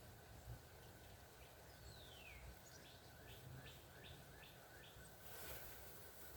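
Faint birdsong over a steady low hiss: one falling whistled note, then a run of about six short repeated notes at roughly two a second.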